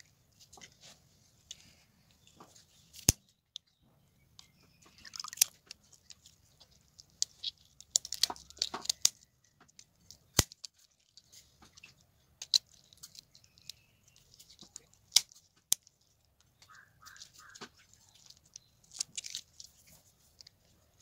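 Scissors snipping through the fins and gills of a raw tilapia: crunchy cutting with scattered sharp clicks of the blades.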